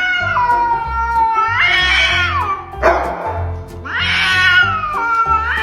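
A cat yowling in two long, drawn-out calls, each bending up in pitch before it ends, the second starting near four seconds in. Background music with a steady bass beat plays underneath.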